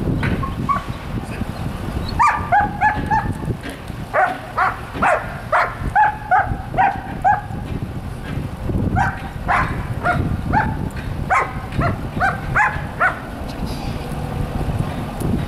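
A dog barking in three runs of quick, fairly high-pitched barks, about three a second, with short pauses between the runs.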